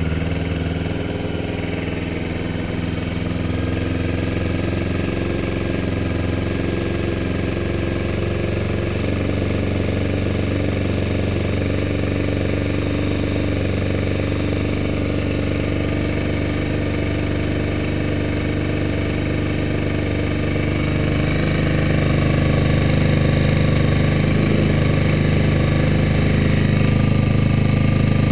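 Kawasaki Ninja 250R parallel-twin engine idling on a cold start with the choke closed, with a light ticking that the owner hears only while the engine is cold. The cause is unknown; he suspects it comes from around the oil. The engine note grows louder about 21 seconds in.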